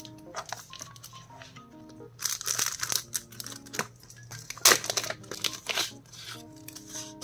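Clear plastic sticker cover crinkling and crackling as sticker sheets are handled and slid out of it, busiest in the middle with one sharp, loud crackle. Soft background music plays underneath.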